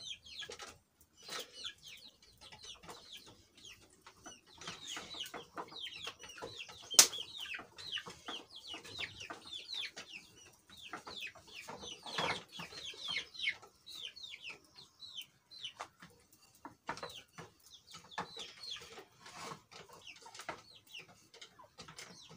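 Chickens calling: a continual stream of short, high calls that slide downward, mixed with clucks, with one sharp knock about seven seconds in.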